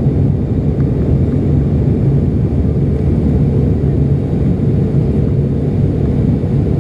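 Steady low drone of an ATR 72-600's Pratt & Whitney PW127 turboprop engine and propeller, heard inside the cabin beside the engine during the descent to land.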